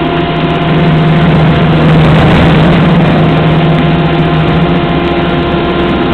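Industrial paper shredder running with its feed conveyor belt: a loud, steady mechanical drone with a low hum, a little louder about one to three seconds in, as paper is carried into the grinder.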